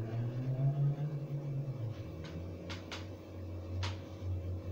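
A low steady hum, with four short clicks about two to four seconds in as an office swivel chair is turned round.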